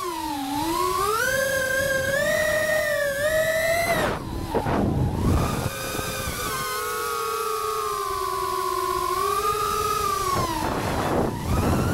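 FPV quadcopter's brushless motors and propellers whining, the pitch rising and falling with the throttle. About four seconds in the whine drops away and breaks into a rush of noise, then settles back to a steadier whine, and it dips and breaks up the same way near the end.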